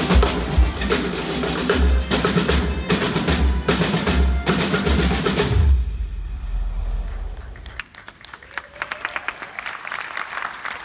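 Percussion ensemble of marching snare drum and drum kits playing with heavy bass drum hits, stopping about six seconds in on a final hit that rings on briefly. Audience applause starts about eight seconds in.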